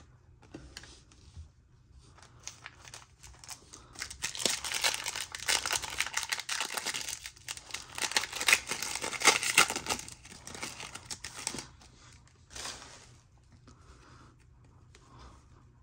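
Foil trading-card pack wrapper being torn open and crinkled, with light crinkling at first and then several seconds of louder, dense crackling before it settles down.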